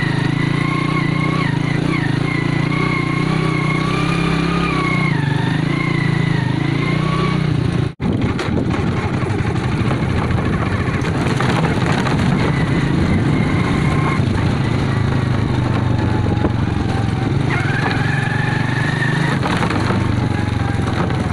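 Small motorcycle engine running steadily under way on a rough dirt trail, with a high whine over it for stretches and clattering from the bike over the bumps. The sound cuts out for an instant about eight seconds in.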